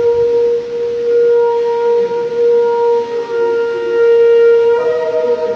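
A loud, steady horn-like tone held for several seconds, with a second, higher tone joining near the end.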